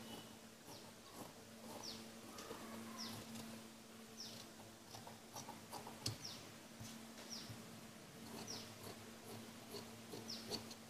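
Scissors cutting through folded cotton blouse fabric in short snips. Over it, a faint high chirp that falls in pitch repeats about every second, with a steady low hum underneath.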